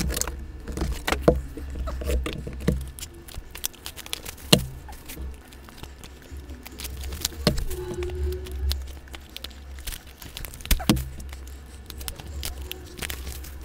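Cardboard Yu-Gi-Oh Maximum Gold booster boxes being handled and set down on a tabletop playmat: scattered light taps and clicks, with four louder knocks a few seconds apart, over a steady low hum.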